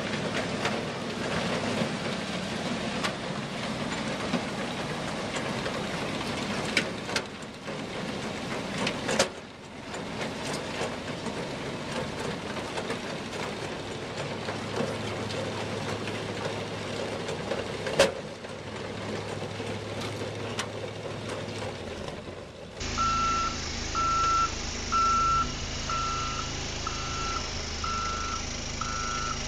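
An old four-track Tucker Sno-Cat running and driving on pavement: steady engine and machinery noise with scattered clicks. About 23 seconds in, this gives way to an engine running under a backup alarm beeping about once a second.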